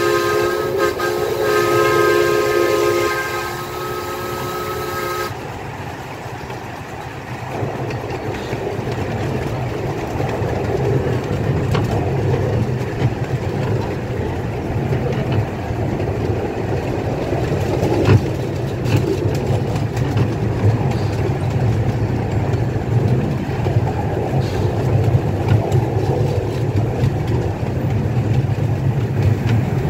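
Miniature steam locomotive's chime whistle blowing a chord of several tones for about five seconds, the lower notes dropping out first. Then the train running along the track: a steady low rumble of the wheels with scattered clicks over the rail joints and one sharper clack midway.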